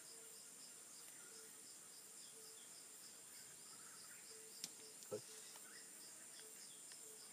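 Faint insects calling: a steady high drone with a chirp pulsing about three times a second, and a few faint bird-like calls. A sharp click about four and a half seconds in, followed half a second later by a soft knock.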